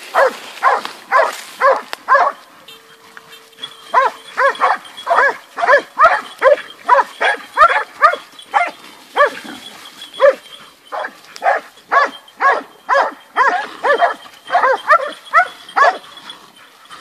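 Hunting dogs baying a wild boar, barking over and over, often two to three barks a second. The barking pauses briefly a couple of seconds in, then carries on.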